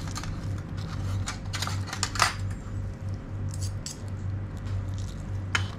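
Irregular light clinks and taps of small hard objects knocking together, the sharpest a little over two seconds in and another just before the end, over a steady low hum.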